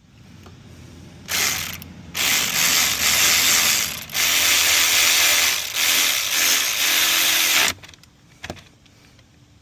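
Ratchet wrench tightening the bolt that mounts the rear brake pedal on a Yamaha YFZ450R quad, in four quick runs of rapid clicking separated by short pauses.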